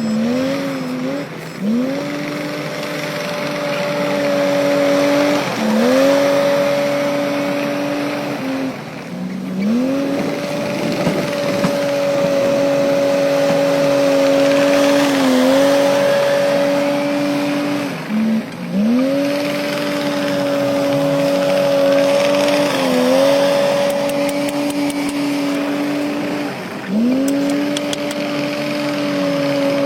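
Heavy earthmoving machine's diesel engine working hard, with a steady high whine that sags in pitch and recovers every few seconds as the machine takes load.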